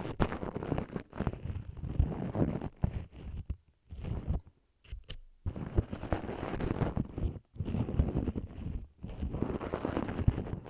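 Ear pick scraping and rubbing right at the microphone: a dense run of close, scratchy crackles and small clicks, which pauses briefly about four seconds in.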